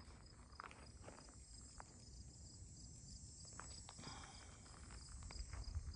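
Quiet outdoor ambience: an insect chirping steadily at about three to four chirps a second, with faint scattered crunches of footsteps on gravel.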